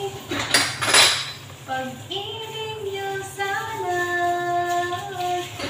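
A woman's voice singing a slow melody in long held notes. A short noisy burst comes about a second in.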